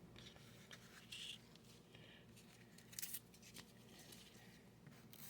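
Near silence, with a few faint soft rustles and clicks of trading cards being handled, about a second in and again around three seconds in.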